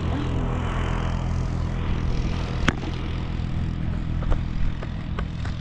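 Pickup truck carrying a truck camper driving along the highway: steady engine drone with road and tyre noise, and a few sharp clicks, the loudest about a third of the way in.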